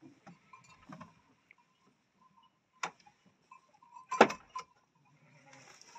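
A few sharp, scattered clicks and knocks, the loudest about four seconds in, with a faint high ringing tone coming and going.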